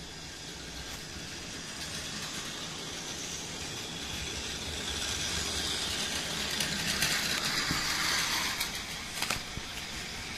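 Battery-powered Plarail toy train, a Tobu 70090 series model, running on plastic track: its small motor and gears whir and its wheels rattle along the rails, growing louder as it passes close by midway and then fading. A couple of sharp clicks near the end.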